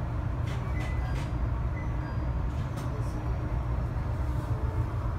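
Passenger train moving slowly through a station, heard from inside the car: a steady low rumble with a few faint clicks in the first few seconds.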